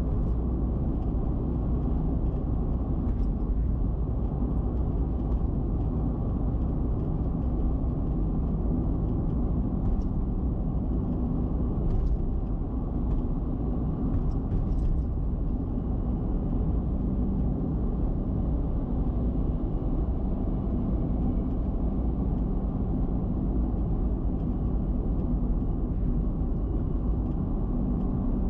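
Car cruising on an expressway at high speed: a steady rush of tyre and wind noise with a low rumble.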